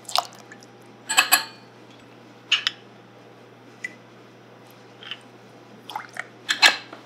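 A series of short clinks and taps of glassware, with brief splashes of liquid, as a measured shot of spirit is poured into a mixing glass. The taps come unevenly, with a cluster near the end.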